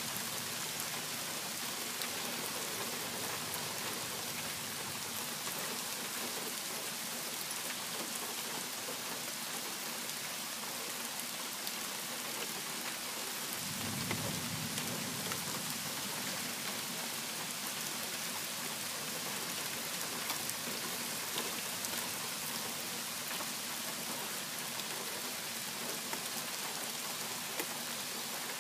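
Steady heavy rain falling, an even hiss, with a brief low rumble about halfway through.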